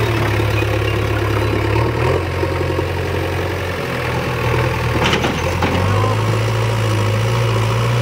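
JCB 3DX backhoe loader's diesel engine running as the machine manoeuvres, its note stepping up and down in pitch a few times. A short knock about five seconds in.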